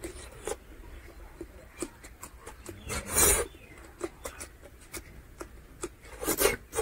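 Close-up eating sounds of a man eating rice and curry with his hand: wet chewing and lip smacks in quick clicks. Two louder sucking bursts come as handfuls go into the mouth, about three seconds in and near the end.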